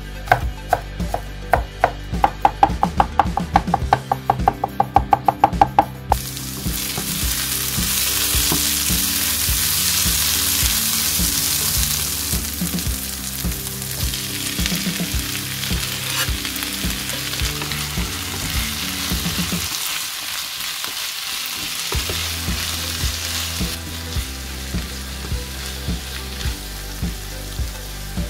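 A chef's knife chopping garlic on a wooden cutting board in quick, even strokes, about three or four a second. About six seconds in it gives way to a pan of onions frying with a steady sizzle and stirring, loudest for the next several seconds and then settling to a lower hiss.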